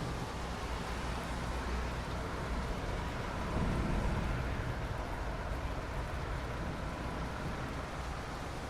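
Steady rain falling, with a low rumble underneath that swells briefly about four seconds in.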